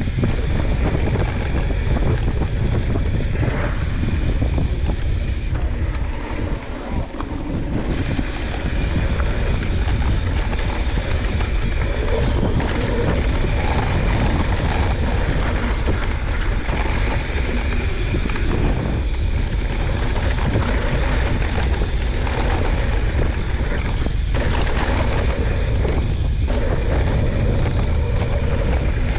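Steady rushing of wind on the microphone and the tyres of a YT Jeffsy 29 mountain bike rolling fast over a dusty dirt trail on a downhill run, briefly quieter about six to seven seconds in.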